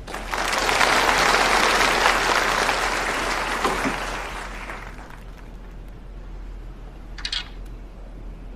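Audience applauding, starting at once and dying away after about five seconds.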